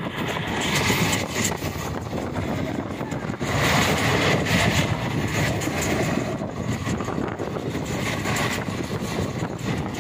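Steady running noise of a passenger train moving at speed, with wheels on the rails and the rush of air, heard at the coach's open doorway. It grows louder for a second or so about four seconds in.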